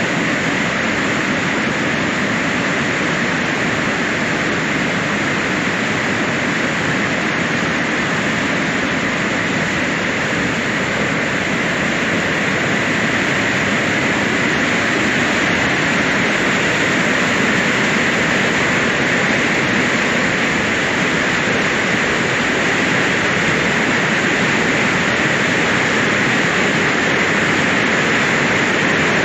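Water pouring out over a check dam, a loud, steady rush of falling water.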